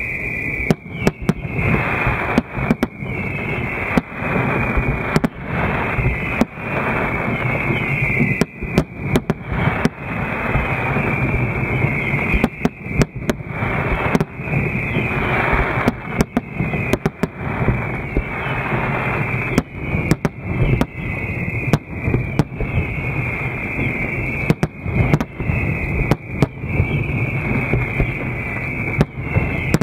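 Aerial fireworks shells bursting one after another, dozens of sharp bangs across the whole stretch over a continuous rumbling background.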